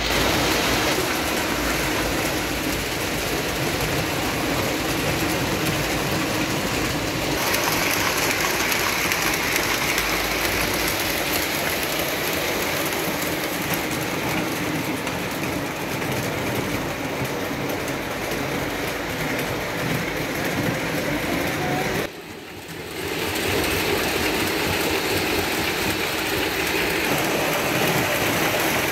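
Lionel O-gauge model trains running on tubular three-rail track and switches: a steady rumble of wheels and motors. The sound drops away for about a second roughly two-thirds of the way in, then carries on.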